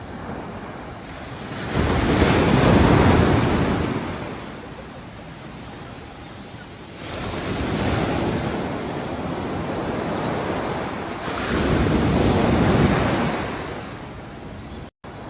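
Ocean waves breaking and washing up a shore in slow surges, two louder breakers about two seconds in and again near twelve seconds, with a softer wash between.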